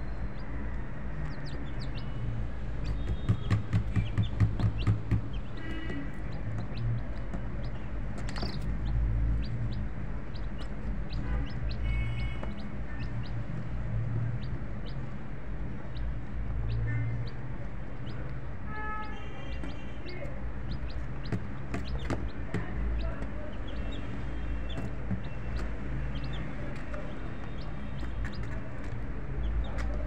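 Chickens clucking, with a quick run of clucks about three seconds in, and short high calls from chicks peeping, over a steady low hum.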